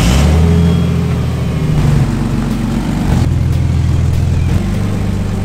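Ford AU Falcon's 4.0-litre Intech inline-six running loud through a leaking, half-missing exhaust as the car pulls away, its note stepping in pitch about two, three and four and a half seconds in.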